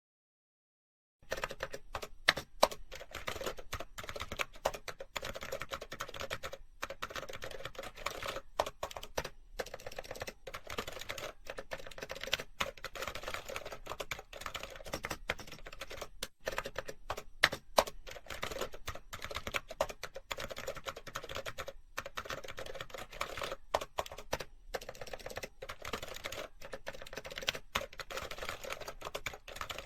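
Fast, continuous typing on a computer keyboard: dense key clicks with a few short pauses, starting about a second in after silence.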